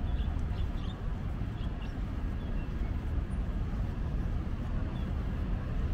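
Open-air ambience: a steady low rumble, with a few faint high chirps in the first two seconds.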